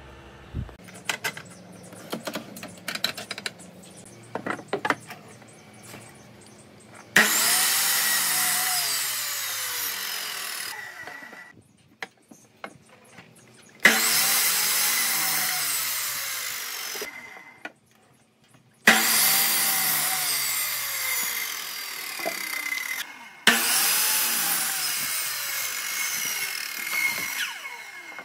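Electric sliding mitre saw run four times, crosscutting a wooden block: each run starts suddenly and tapers off as the motor winds down, its pitch falling. Before the first cut, light knocks and rustling from the wood being handled.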